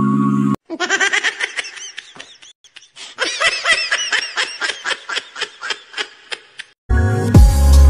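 Snickering laughter: a rapid run of short, high-pitched bursts that goes on for about six seconds, with a brief pause partway through. Background music stops just before it and comes back near the end.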